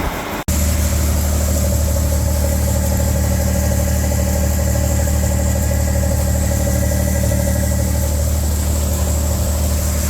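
1978 John Deere 4400 combine running steadily, with a brief dropout about half a second in.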